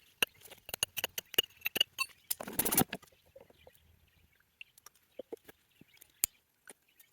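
Quick light metallic taps, about four or five a second for the first three seconds, as a sheared-off sleeve bolt head set back in its anchor in limestone is tapped to knock the sleeve loose. A short scraping rattle comes near the end of the taps, then only scattered faint clicks and one sharp tick.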